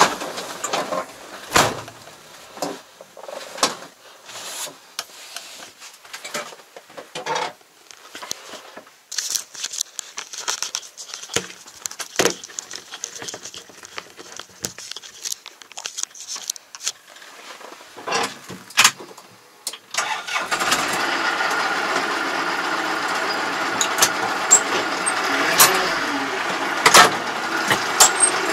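Irregular clicks and knocks, then about twenty seconds in the diesel engine of a Yanmar YT333 tractor starts and settles into a steady run.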